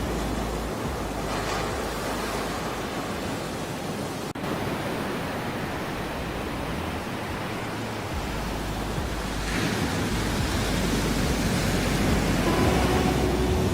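Ocean surf, a steady rush of breaking and washing waves, with one wave surging about a second and a half in and another about nine and a half seconds in. Near the end, faint held musical tones come in under the surf.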